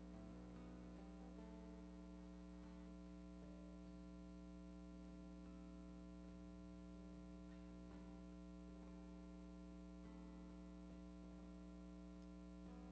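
Near silence: a steady electrical mains hum, with faint music under it.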